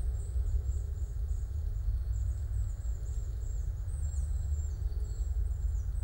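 Autumn forest ambience: a steady low rumble carries on throughout, under very high, thin bird calls. The calls are short notes repeated over and over, many of them sliding downward in pitch.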